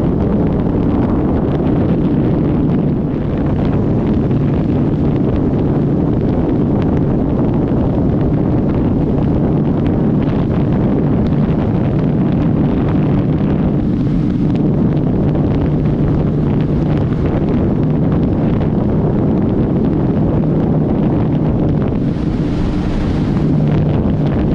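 Steady wind rush buffeting the microphone of a motorcycle riding at speed, with a faint steady hum underneath from the stock Suzuki Hayabusa, whose exhaust is so quiet that the wind covers it.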